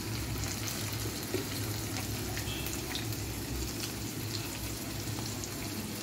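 Sliced onions and ginger-garlic paste sizzling in oil in a nonstick wok over a gas flame: a steady frying hiss with small scattered crackles.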